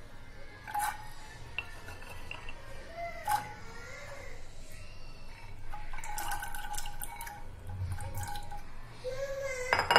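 Soaked chickpeas and water going into a pressure cooker: pouring and splashing, with several sharp clinks of utensils against the metal pot, the loudest near the end.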